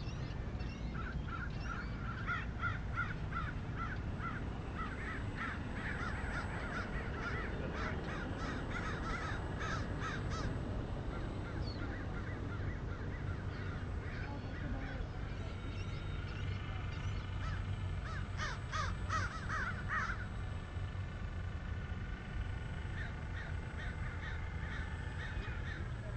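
A flock of gulls calling overhead: dense runs of short, rapid calls, from about a second in to ten seconds and again around the sixteen-to-twenty-second mark, with longer drawn calls in the later part, over a steady low rumble.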